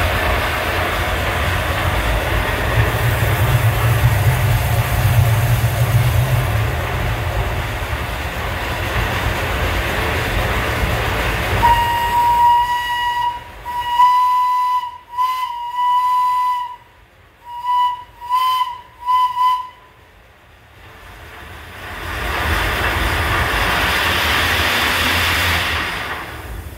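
A 15-inch gauge steam locomotive hissing loudly and steadily. About halfway through its whistle sounds, one long blast followed by a string of shorter toots, and the hiss comes back near the end.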